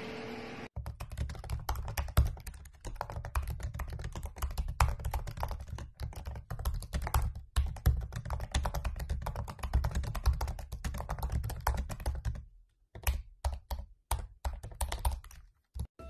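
Rapid typing on a laptop keyboard, a fast, uneven run of keystroke clicks that thins out after about twelve seconds into a few short bursts separated by pauses.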